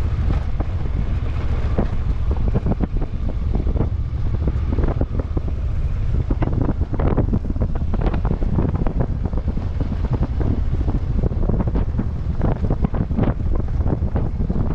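Heavy wind buffeting the microphone over a constant low rumble, with frequent short knocks and rattles throughout, as from a camera riding on a vehicle driven fast over rough off-road ground.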